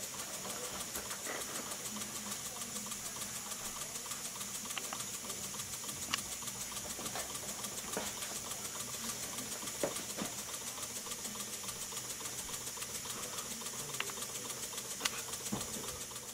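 Model double-acting oscillating (wobbler) engine running on compressed air: a steady hiss of air through its ports with a fast, even pulse, and a few light clicks.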